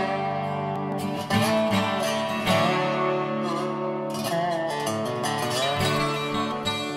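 Guitar-led background music with held chords and a melody line.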